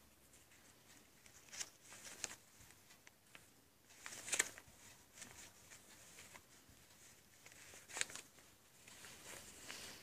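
Fabric and felt rustling as the cloth pages and flaps of a handmade quiet book are handled, with a few short scratchy rustles, the loudest about four seconds in and another near eight seconds.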